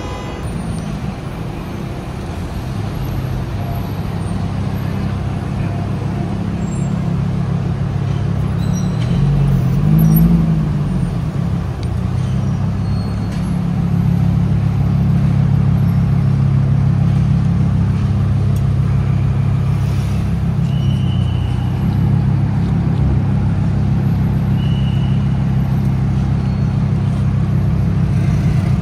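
Car engines in slow city traffic, with a low steady engine drone. The drone rises and falls in pitch once about ten seconds in, then grows louder from around the halfway point.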